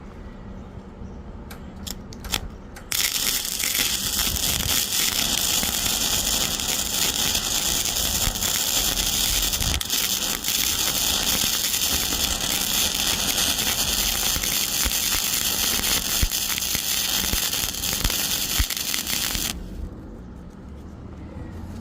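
Arc welding a downhill stringer bead on thin-gauge steel: a steady, dense crackle that starts about three seconds in after a few short clicks and cuts off near the end. It is a buttering pass, built up along the edge of a flare bevel groove to close the gap.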